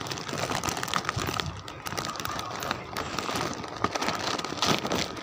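Clear plastic bag crinkling and rustling right against the microphone: a dense, continuous run of crackles.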